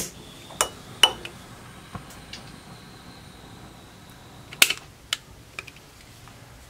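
Several sharp clicks and light taps, spread out, the loudest a little over halfway through, as a candle in a glass holder is lit with a long-nosed butane utility lighter.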